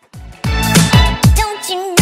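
Upbeat music with a heavy bass beat that starts after a short gap about half a second in.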